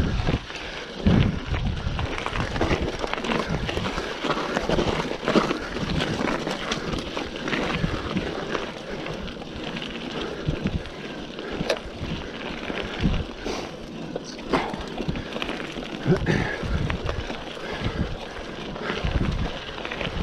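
Mountain bike on the move over a rough trail: tyre noise with scattered clicks and knocks from the bike, and gusts of wind buffeting the microphone.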